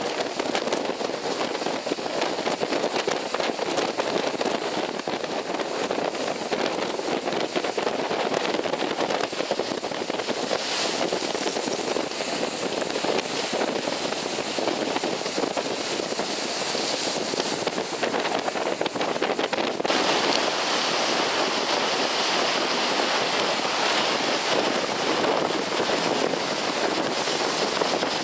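Rough sea surf breaking and washing against a concrete tetrapod breakwater: a steady rushing noise that turns hissier about two-thirds of the way through.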